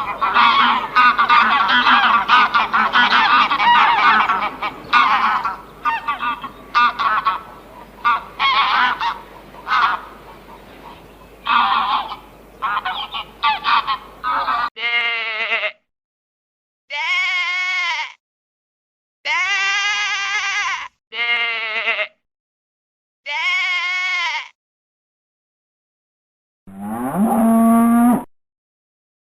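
A flock of geese honking, many calls overlapping. After a sudden cut come five separate, evenly pitched bleats of about a second or two each, then one more call near the end that rises in pitch.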